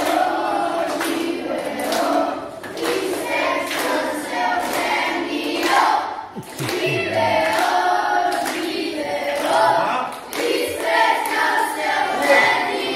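A group of children singing together in chorus, with some hand clapping.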